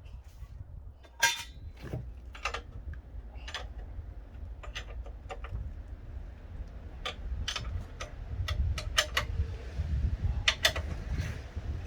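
Irregular sharp mechanical clicks and knocks over a low rumble, from a high-pressure water pump and its parts being handled or run.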